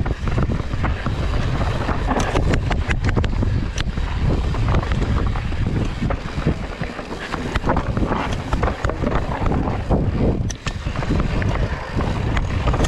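Mountain bike descending a rough, rocky trail at speed: wind buffeting the microphone over a steady rumble of tyres on rock, with frequent sharp rattles and knocks as the bike hits bumps.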